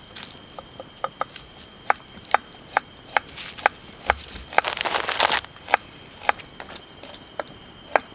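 A steady chorus of night insects, with sharp clicks about twice a second and a short spell of denser crackling about five seconds in.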